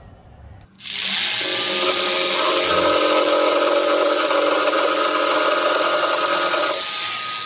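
Pumpkin J-J1110 200 W jigsaw cutting through 62 mm-thick wood on cutting-action setting 3, its fastest-cutting setting. It starts about a second in, runs at a steady pitch and stops just before the end.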